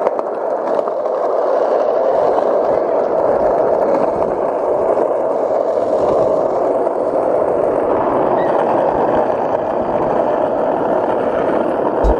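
Skateboard wheels rolling over asphalt, a steady continuous rumble.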